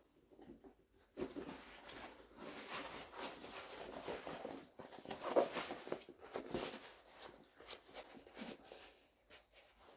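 A rubber dry suit wrist seal and its clamp ring being handled and worked into place by hand: irregular rubbing, rustling and scraping, with the loudest scuff about halfway through.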